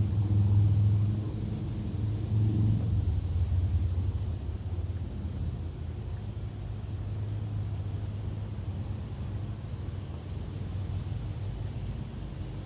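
A steady low rumble, louder for the first three seconds and then even, under a constant high buzz of insects.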